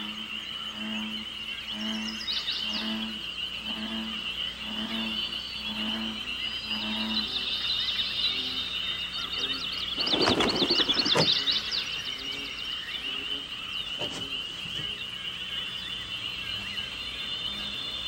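Natural ambience: a steady high insect drone, a frog calling in low croaks about twice a second for the first several seconds, and birds chirping over them, with a louder burst of bird calls about ten seconds in.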